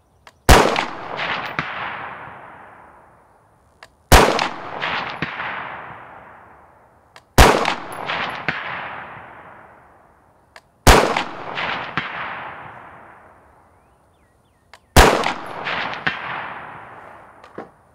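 Five unsuppressed shots from a 5.56 AR-15 special purpose rifle, one every three to four seconds, each followed by a long rolling echo. About a second after each shot comes a faint clang of the bullet striking a steel target downrange.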